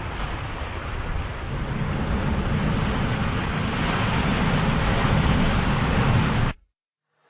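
Ocean surf: a steady wash of waves, swelling louder through the middle, then cut off suddenly near the end.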